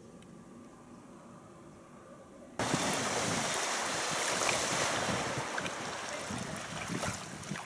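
Jet ski crossing the water: a loud, steady rush of spray and wind noise on the microphone that starts suddenly about two and a half seconds in, after a faint hush.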